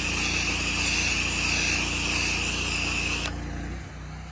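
An 8 GPM pressure washer running steadily while its gun sprays, a loud hissing jet over the engine's drone. The spray cuts off suddenly about three seconds in, and shortly after the engine's note shifts and drops while it keeps running.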